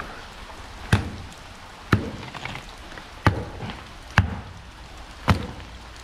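Five sharp knocks, about one a second, from scrap iron fished out with a neodymium magnet being handled, over steady rain.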